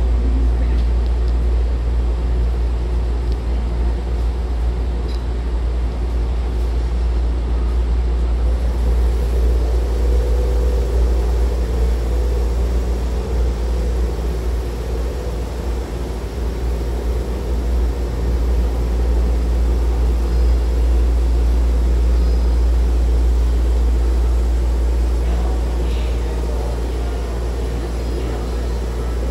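Steady low hum of a stopped Hankyu electric train standing at the platform with its doors open, its onboard equipment running, over an even station background noise.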